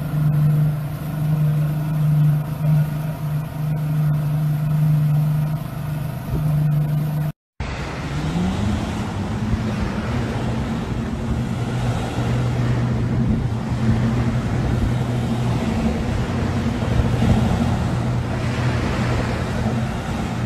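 Motorboat engine running steadily at speed, then after a brief cut-out another engine's note rises and holds as it powers along, with wind and water rushing.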